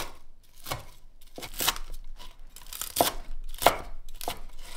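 A cleaver chopping crisp fried karaage chicken into small cubes on a wooden cutting board: about nine uneven knife strikes against the board, with the crunch of the fried coating.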